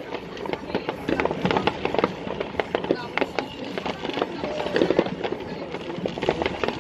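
Fireworks going off: a dense, irregular run of crackling pops and bangs.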